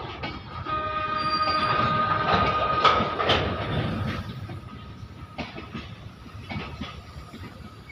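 Goods train of hopper wagons rolling slowly past: rumble with irregular clacks of wheels over rail joints. A high steady wheel squeal is loudest about one to three and a half seconds in and fades after.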